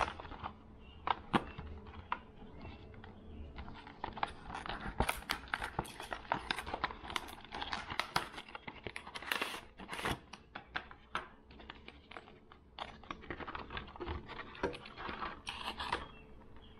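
Plastic lure packaging crinkling and clicking as it is handled: a few sharp clicks at first, then dense crinkling from about four seconds in until near the end.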